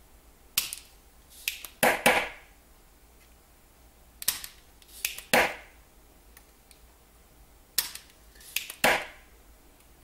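Spring-loaded solder sucker on a heated desoldering iron, cocked and fired three times. Each cycle is a few sharp clicks and then a louder snap with a brief ring as the plunger releases, pulling molten solder off a chip pin.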